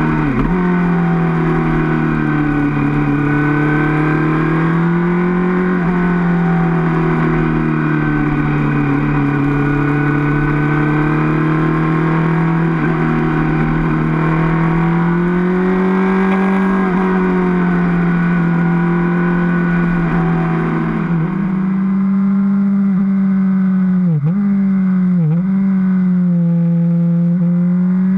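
Suzuki GSR 750's inline four-cylinder engine running through its stock exhaust, its note slowly rising and falling. Several brief, sharp dips in pitch come in the last few seconds.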